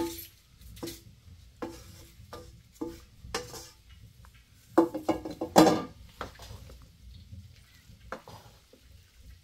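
A metal utensil knocking and scraping in a pot: a string of short clinks with a brief ring, a busy loud run of them about five seconds in, then fainter ones.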